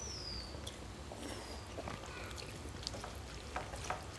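Soft wet squishing and small clicks of fingers mixing rice with dal on steel plates, with a faint high chirp falling in pitch at the start and again about a second later.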